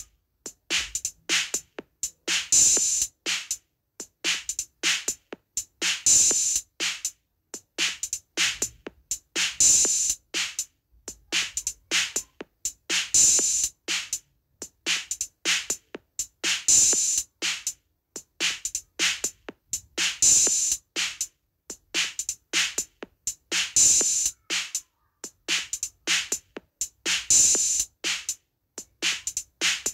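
Rhythmic drum beat in a Turkish halay / oyun havası dance rhythm: quick short hits in a looping pattern, with a bright, hissy accent coming round about every three and a half seconds.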